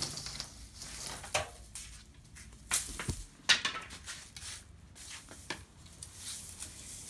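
Long-handled loppers and leafy willow branches being handled on a concrete floor as the top of a willow rod is set up to be lopped off: scattered sharp clicks and knocks, with a low thump about three seconds in.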